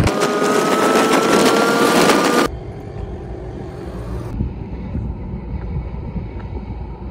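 Riding on a motorcycle at speed: engine and rushing air, with a faint whine rising slowly in pitch. After about two and a half seconds it cuts off suddenly to a much quieter steady low rumble.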